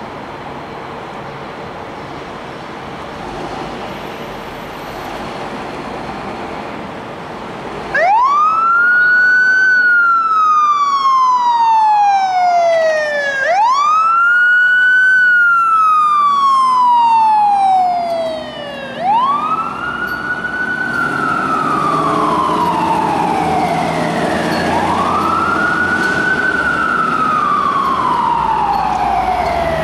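Fire department siren starting up about eight seconds in, after a steady rumble of idling engines and traffic. It wails in repeated cycles, each rising quickly in pitch and then sliding slowly down, a new one about every five and a half seconds.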